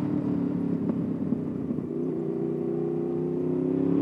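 Honda VFR800's V4 engine, fitted with an aftermarket exhaust, running steadily, then from about halfway its revs climb steadily as the motorcycle accelerates.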